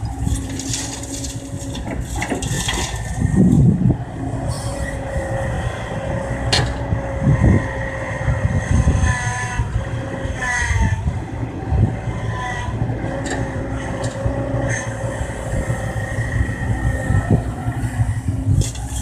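Kobelco excavator working: its diesel engine and hydraulics run steadily with a constant whine, and a few sharp knocks and clanks sound from the digging gear.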